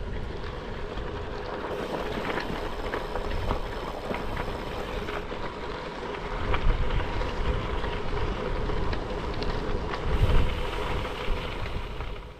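Strong wind buffeting the microphone during a bicycle ride in high wind, with heavy rumbling gusts about two-thirds of the way in and again near the end, over a steady rush scattered with small clicks and rattles.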